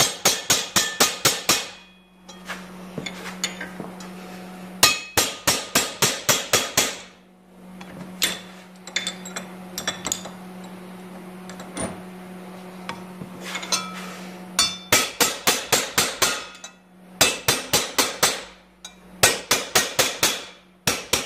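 Hammer striking a flat steel bar held on the edge of a sheet-metal patch panel clamped in a steel bench vise, knocking down a stepped, relieved edge. The blows come in quick runs of ringing metal strikes, about four or five a second, with pauses between runs while the panel is moved along in the vise.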